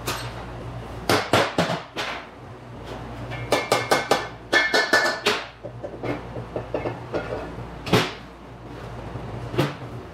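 Irregular sharp metal knocks and clanks as the housings of a Mitsubishi V6M5A five-speed manual transmission are worked apart. A bunch of them comes in the middle with a brief ringing tone, and single loud knocks fall near the end.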